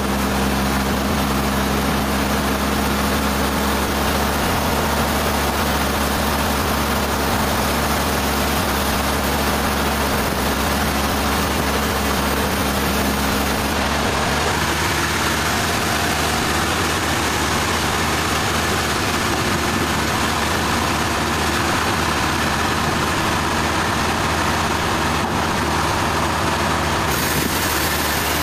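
Sawmill machinery running steadily: a constant engine hum under an even rushing noise, its tone shifting about halfway through.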